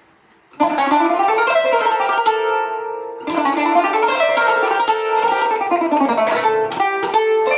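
Solo kanun (Turkish plucked zither) playing an improvised taksim in makam Nihavend: quick runs of ringing plucked notes start about half a second in, ease off briefly around the third second, then resume with more runs and sharp single plucks.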